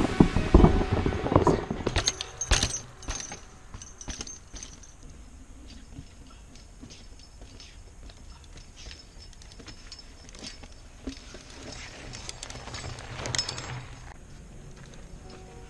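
Mountain bike (a Redline D600) rattling and clattering over rocky stone steps, with knocks and metallic jingles for the first couple of seconds. It then settles to a much quieter stretch of scattered small clicks and rattles as the bike comes to rest.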